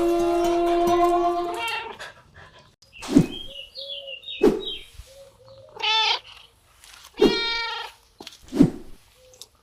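A cat meowing twice, with several sharp thuds around the calls. A held musical tone at the start cuts off after under two seconds.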